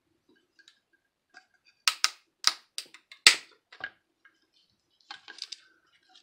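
Hard plastic clicking and snapping as a Cobra MicroTalk walkie-talkie's housing is pried and pulled apart by hand: about half a dozen sharp clicks over two seconds, then a quicker cluster of small clicks near the end.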